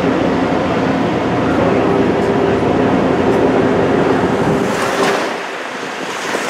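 TTC streetcar running along its street track, heard from inside the car: a steady rumble of wheels on rail with a held motor hum. About five seconds in, the deep rumble drops away and the sound gets quieter.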